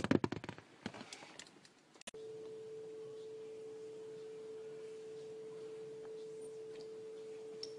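A single steady pure tone, mid-pitched and quiet, starts about two seconds in and holds unchanged for about five and a half seconds.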